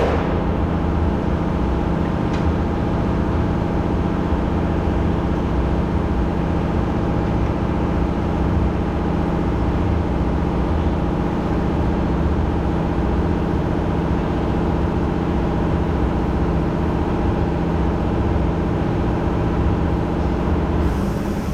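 A steady engine-like drone with several constant tones over a rumbling hiss, unchanged until it shifts just before the end.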